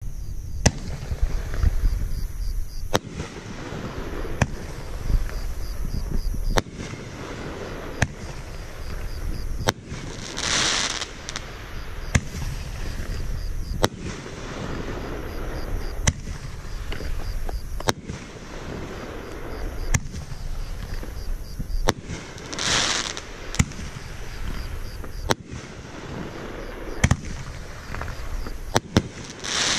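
Jaw Breaker 9-shot consumer firework cake firing its shells one at a time: sharp bangs spaced a few seconds apart as shells launch and burst. Twice a burst is followed by a hissing rush lasting under a second.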